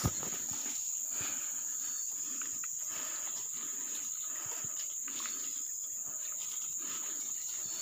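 Steady, high-pitched insect drone, as of cicadas or crickets in the forest, holding one unchanging pitch.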